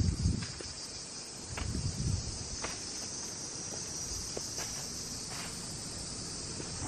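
A steady, high-pitched chorus of summer insects droning on without a break. Low rumbling thumps sound at the start and again about two seconds in, with a few faint clicks later on.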